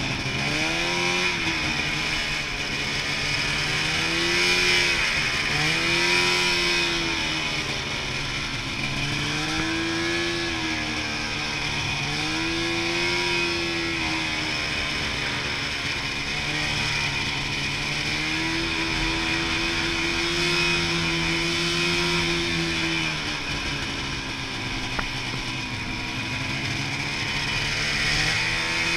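Snowmobile engine running under way. Its pitch rises and falls every few seconds as the throttle is opened and eased, over a steady hiss.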